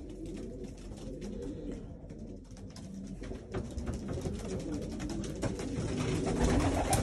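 Several racing pigeons cooing at once, overlapping low wavering calls, with scattered short clicks; the cooing grows louder near the end.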